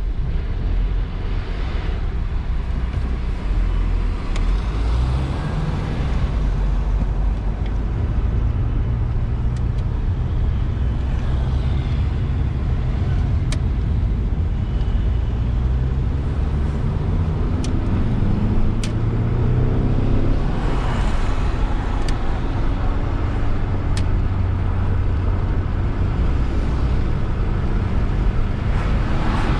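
Road traffic: motor vehicle engines running and moving past. In the middle, one engine's pitch rises over several seconds as it accelerates. A louder vehicle passes about twenty seconds in, and another near the end.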